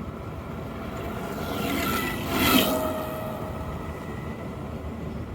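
A road vehicle passing by: a rumble with tyre and engine noise that grows to a peak about two and a half seconds in, then fades.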